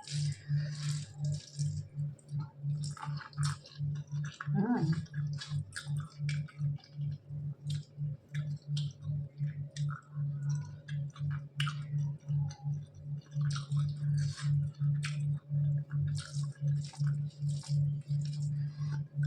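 Close-up eating sounds: chewing with wet, squishy mouth clicks, over a steady low pulsing about three times a second.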